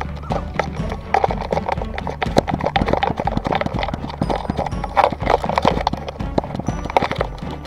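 Rapid, irregular knocks and rattles from a dog-mounted action camera jolting with each stride as the dog trots. Background music with steady low notes runs under the knocks.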